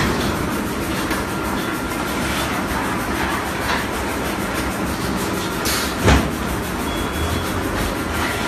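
Magnesium oxide board production line running: a steady, even machine noise from the conveyor and rollers, with one sharp knock about six seconds in.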